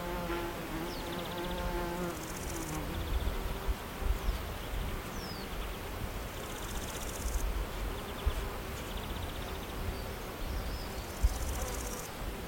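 A flying insect buzzing close by, a steady hum that drops in pitch and fades away about two seconds in. Fainter buzzing carries on, with a few short high chirps and now and then a high, rasping trill, over a low rumble.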